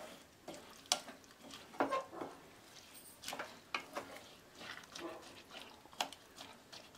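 Wooden spatula stirring thick black chickpea masala in a metal kadai, scraping and knocking against the pan in irregular strokes, over a faint sizzle from the pan on the heat.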